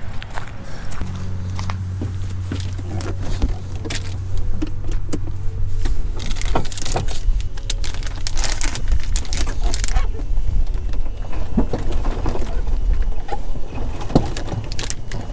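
Small fishing gear being handled: clicks, rattles and plastic rustling as tackle and a soft-plastic bait bag are sorted, with a thicker burst of rustling in the middle. Under it for the first several seconds runs a steady low hum.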